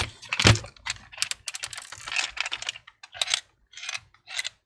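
Broken plastic pieces rattling and clicking inside an HP 17 laptop's case as it is shaken, in quick irregular clatters that thin into a few separate bunches near the end.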